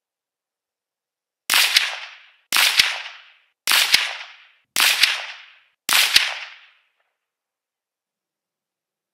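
Five rifle shots from a Guncraft AR-15-pattern semi-automatic in .22 Magnum, fired at about one a second. Each is a sharp crack with a second sharp crack a fraction of a second later, dying away within about a second.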